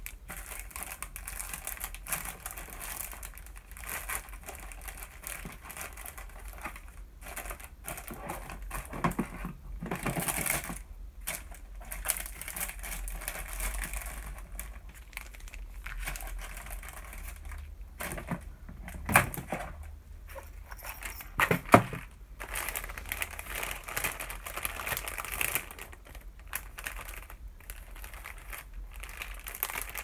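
Plastic packaging and paper crinkling and rustling as craft supplies are handled and rummaged through, with two sharp knocks about two-thirds of the way in.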